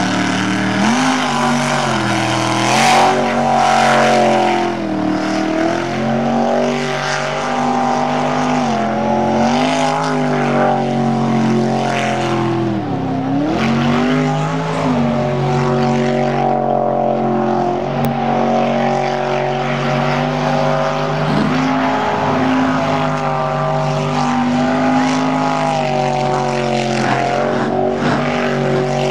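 Jet sprint boat engine running hard, its pitch rising and falling with the throttle, with one deep dip and recovery about halfway through.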